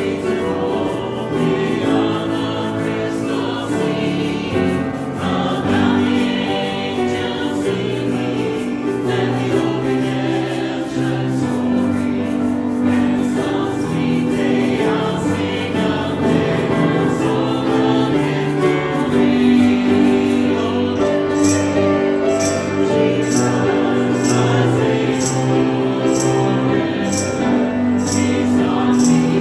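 Small church congregation singing a hymn together from hymnals. A steady high percussive beat joins about two-thirds of the way through.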